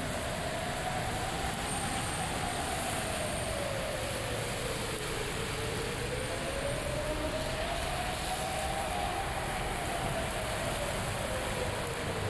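A siren wailing, its single tone rising and falling slowly, about once every seven seconds, over a steady hiss.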